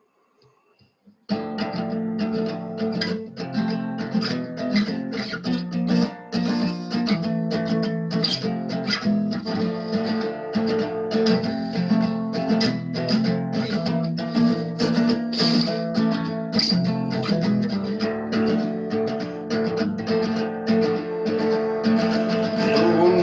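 Acoustic guitar strummed, starting about a second in, playing a chord progression in E minor (Em, G, F#, C, Bm).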